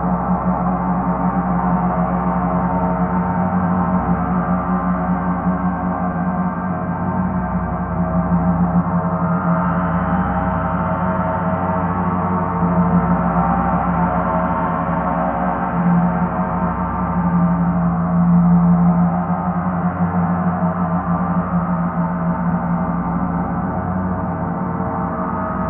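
Paiste planetary gongs ringing on in a dense, sustained wash of many overlapping overtones, with no distinct strikes, swelling several times.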